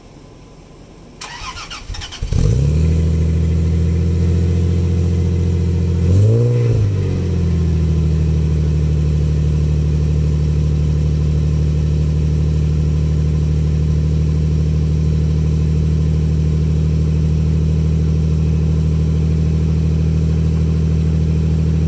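A 2001 Lexus IS300's 2JZ-GE inline-six cold-starting in freezing weather: the starter cranks for about a second, the engine catches readily a little over two seconds in, speeds up briefly and drops back around six seconds in, then settles into a steady idle, heard close to the tailpipe.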